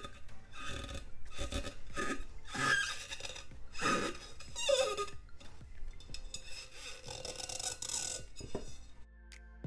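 Fingers rubbing clear printable vinyl onto a coated tumbler, screeching and squeaking in repeated strokes as the decal is smoothed down.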